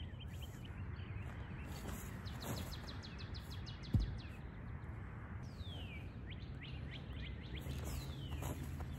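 Songbirds chirping in an open field, with a quick trill and a few falling whistles over a steady low outdoor rumble. A single dull thump sounds about four seconds in.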